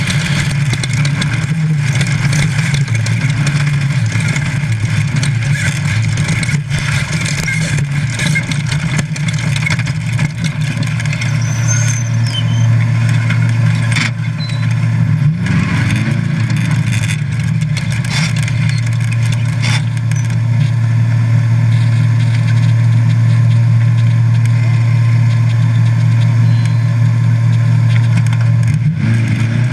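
Class 5 Baja Bug race car's VW engine running hard under load, heard from inside the car, with a few sharp knocks from the chassis. Partway through, the engine settles into a steadier, louder drone.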